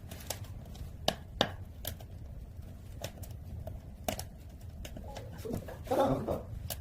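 Kindling catching in a wood stove's firebox: scattered sharp crackles and pops of burning wood, about one a second, over a low steady hum.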